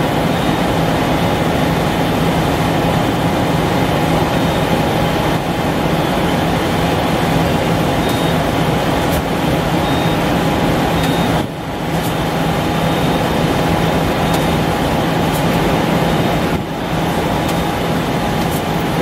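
Okuma LFS15-2SP twin-spindle CNC turning center running under power: a steady mechanical hum with a thin whine above it, dipping briefly twice in the second half.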